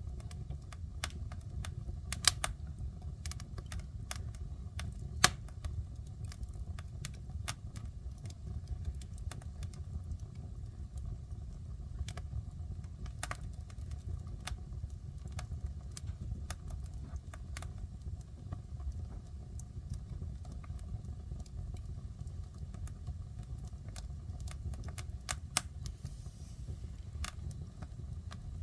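Wood fire burning in a fireplace: irregular crackles and pops of the burning wood, a few of them louder, over a steady low rumble of the flames.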